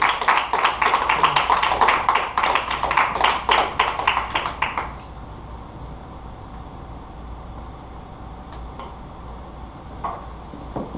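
A small audience applauding for about five seconds, then dying away to quiet room noise with a few faint knocks.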